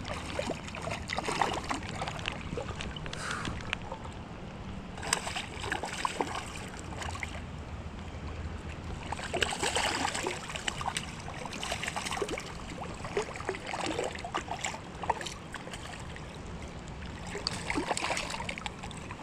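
Creek water running and trickling steadily, with irregular splashes and sloshes close by in the water.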